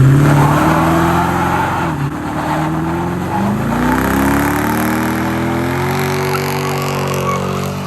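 V8 engine revved hard in first gear on wet ground, trying to break the tyres loose. The pitch climbs, drops back twice in the first few seconds and climbs again to a steady high rev. A rushing hiss of spinning tyres is strongest early on.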